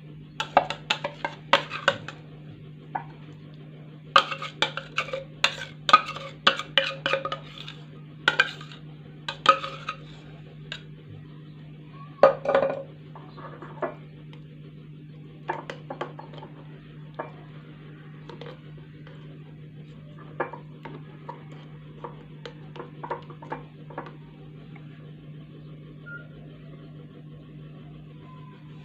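Kitchen utensils clinking against dishes and glassware, in quick clusters for the first third and sparser after, over a steady low hum.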